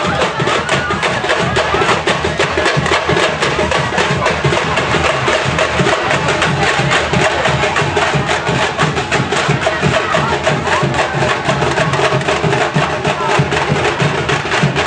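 Live band music with fast, dense percussion clicking over a sustained melody.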